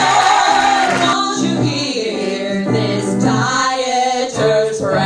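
Female vocal trio singing together, a comic cabaret song with the three voices moving from note to note.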